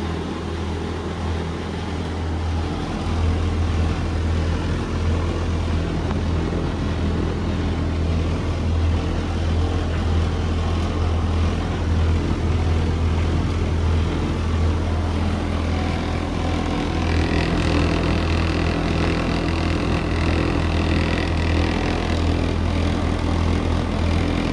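Indesit washing machine and Indesit tumble dryer running together: a steady, loud low motor hum with drum noise. About two-thirds of the way through, a higher whine joins it.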